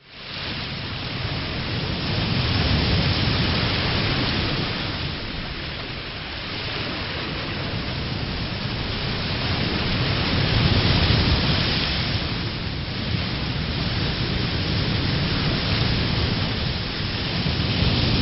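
Sea surf: waves breaking and washing ashore in a continuous rush that slowly swells and eases every several seconds.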